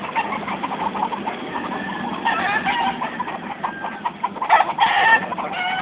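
Chickens clucking in bursts, busiest about two seconds in and again near the end.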